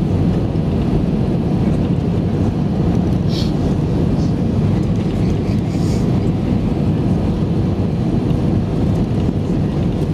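Steady engine and airflow noise of a jet airliner heard inside the cabin at a window seat over the wing, during the approach to land.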